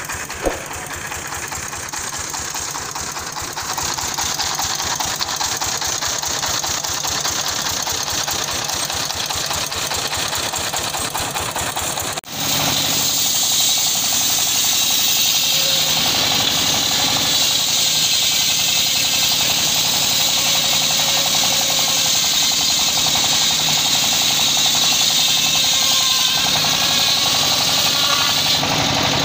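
Large circular saw bench with its engine running steadily. After a short break about twelve seconds in, it turns louder and harsher, with a dense steady hiss as the blade rips lengthwise through a teak log.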